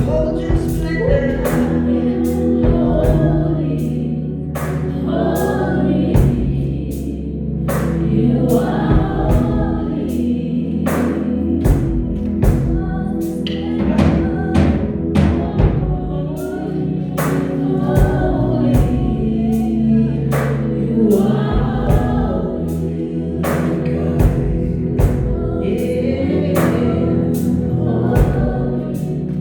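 Gospel worship music: a choir singing over a steady drum beat and sustained bass and keyboard notes.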